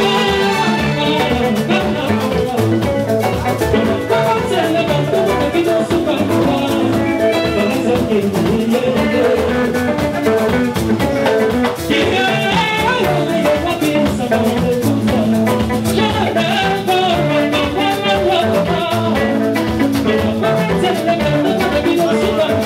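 A live Congolese dance band playing: interlocking electric guitar lines over a steady drum kit and conga beat, with a man singing into a microphone at times.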